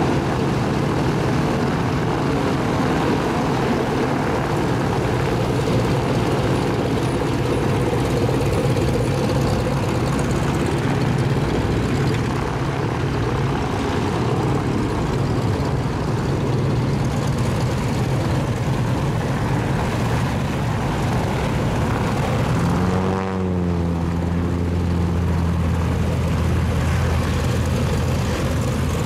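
Cessna 195's seven-cylinder Jacobs radial engine running at taxi power as the plane taxis, a steady low engine note with propeller noise. About two-thirds of the way through, the tone sweeps briefly as the plane passes close, then the low engine note holds steadier and stronger.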